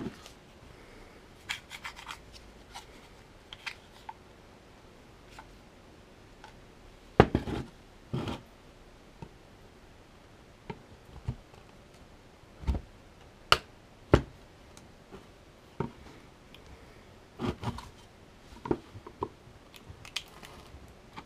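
Plastic battery case being pried and worked to free the cell pack inside: irregular scraping, rubbing and clicking of plastic parts, with sharper knocks now and then.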